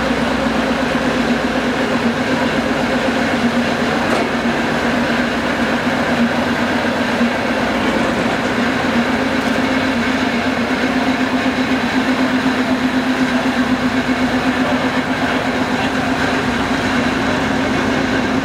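Small diesel shunting locomotive's engine running steadily: a low drone with a fast, even pulse.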